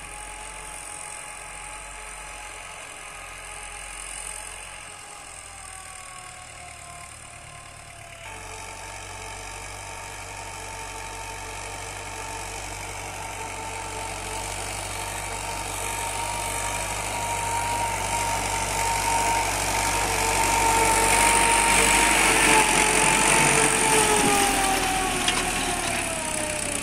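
1967 Belarus tractor's diesel engine running steadily under load while pulling an 18-disc harrow through the soil. It grows louder as the tractor comes closer, and its pitch drops near the end as it passes close by.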